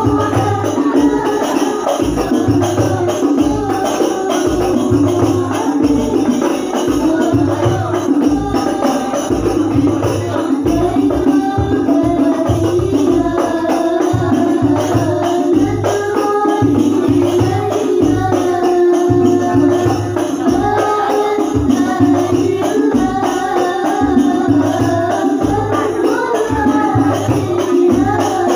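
Al-Banjari hadroh ensemble: hand-beaten frame drums (terbang/rebana) keep a steady rhythm while voices sing shalawat melody over them.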